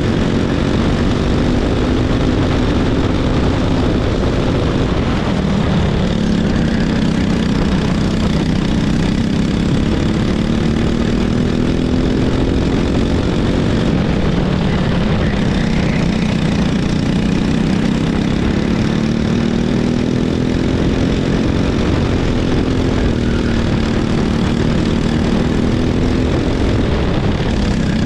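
Racing kart engine under race load, its pitch climbing steadily for several seconds as it accelerates and then dropping as it comes off the throttle, three times over.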